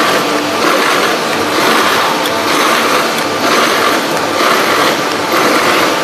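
EPE foam tube extrusion line running, giving a loud, steady machine noise.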